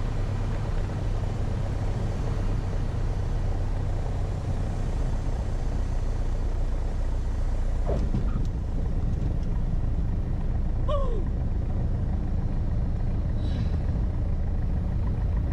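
Piper PA28-181 Archer's four-cylinder Lycoming engine and propeller running steadily with a deep hum. Two short falling squeaks come through about 8 and 11 seconds in.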